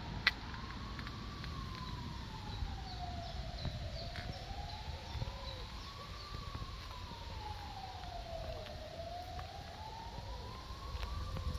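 A siren wailing, its pitch sliding slowly up and down about every five seconds, over a low rumble. A sharp click sounds just after the start.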